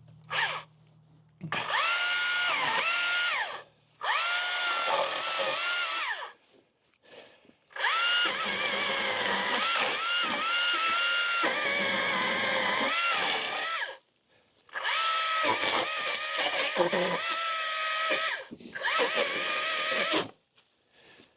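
Greenworks commercial battery pole saw cutting holly trunks in a run of bursts, each a few seconds long. The motor whine dips in pitch as the chain bites into the wood and rises again as it frees, with short silent pauses between cuts.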